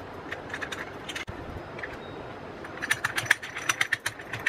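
Brass sev press (sancha) being assembled by hand: a few light metal clicks as the oiled die plate is handled, then from about three seconds in a rapid run of clicks and scrapes as the threaded brass cap is screwed onto the cylinder.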